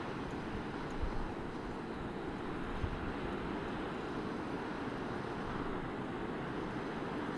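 Coastal wind rushing over the microphone, mixed with the steady wash of surf breaking on rocks below. Two short, stronger gusts come about one and three seconds in.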